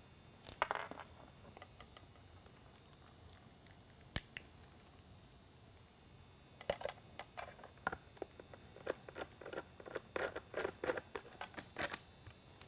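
Small screws being handled and driven into the back of an LED light housing with a hand screwdriver: faint scattered clicks and scrapes, one sharp click about four seconds in, then a run of quick light ticks through the second half.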